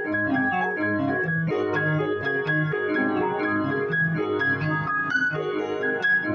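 Keyboard instrument played by hand: a flamenco-flavoured piece with sustained low chords under a moving melody, notes held rather than dying away.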